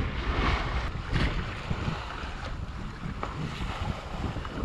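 Wind buffeting the microphone over the rush and splash of water along the hull of a sailboat under way, with a few louder splashes.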